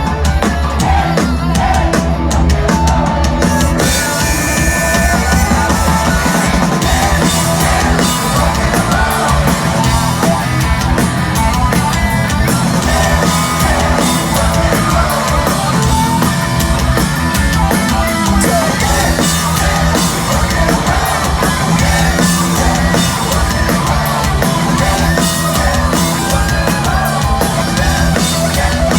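Loud live rock band performance, with the drum kit driving a steady beat.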